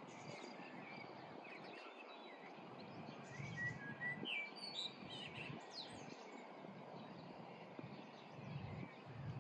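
Birds chirping faintly in short high calls, scattered through the middle, over quiet outdoor background noise.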